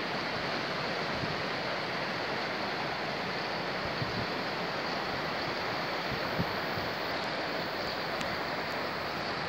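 Steady outdoor rushing noise of wind and flowing river water, with two faint knocks about four and six and a half seconds in.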